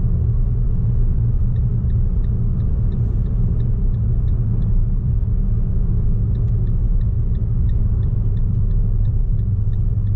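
Fiat Mobi driving, heard inside the cabin: a steady low rumble of road and engine noise, with a faint light ticking, about three to four ticks a second, through most of it.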